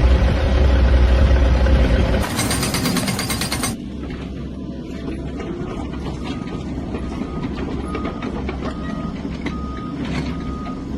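A heavy vehicle's engine running, with a loud hissing burst of about a second and a half. Then a reversing alarm starts, short beeps at one pitch repeating steadily over the engine.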